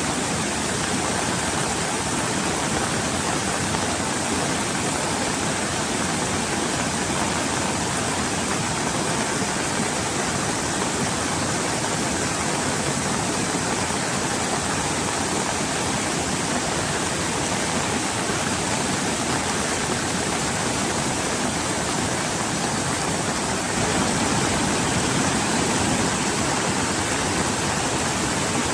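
Steady rush of fast-flowing floodwater in a swollen river, a little louder near the end.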